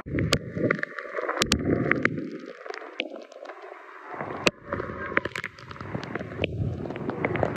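Heavy rain and wind noise rushing over the microphone of a moving two-wheeler in a downpour, with many sharp taps of raindrops hitting close by. It eases for a moment in the middle.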